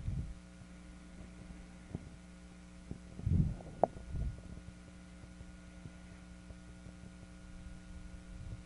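Steady electrical mains hum in the recording, with a few faint clicks, one about two seconds in and another near four seconds in, and a couple of soft low thumps.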